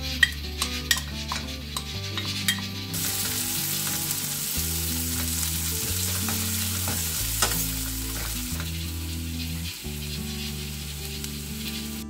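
Kimchi frying in perilla oil in a nonstick pan and stirred with a wooden spatula. A few clicks and scrapes come as it is tipped in and spread during the first few seconds, then steady sizzling sets in from about three seconds in. Background music plays underneath.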